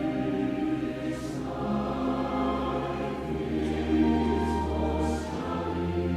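Mixed choir singing held chords with chamber orchestra accompaniment, a steady low bass underneath and a few brief hissing consonants from the singers.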